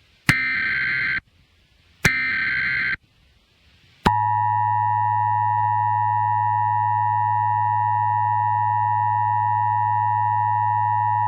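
Emergency Alert System SAME header: two short bursts of digital data tones, each just under a second, then about four seconds in the EAS two-tone attention signal starts, a loud steady dual tone with a low hum under it, held to the end.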